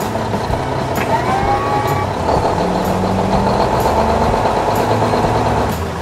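Excavator sound effects: a diesel engine running steadily, with a hydraulic whine that rises and levels off about a second in as the arm moves.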